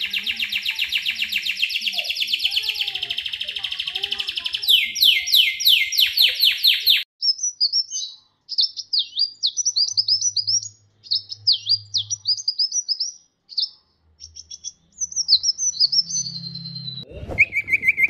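Caged songbirds singing in turn. First a canary gives a fast rolling trill, then a run of rapid falling sweeps. After a cut, a small brown bird sings short high chirping phrases, and near the end a clear whistled note comes in.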